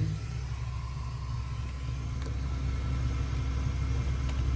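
Class C motorhome under way, its engine and road noise a steady low rumble heard from inside the cab.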